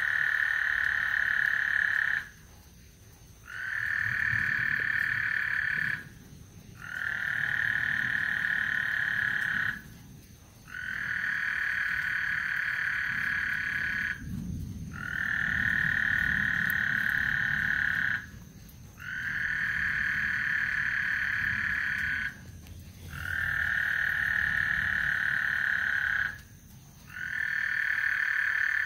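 Frogs calling in long, steady trills of about three seconds each, one after another with short pauses between. A low rumble of distant thunder swells underneath, strongest about halfway through.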